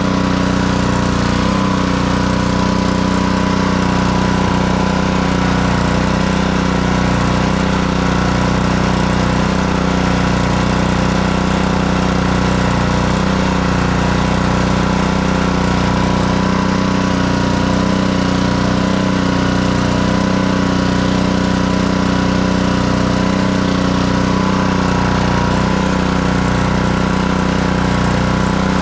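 Honda GCV160 single-cylinder four-stroke engine on a pressure washer, running steadily at an even speed.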